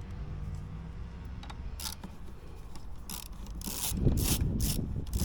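Hand tool clicking and rattling against parts in the engine bay: sharp clicks, two to three a second, start about two seconds in and grow louder near the end, over a low steady hum.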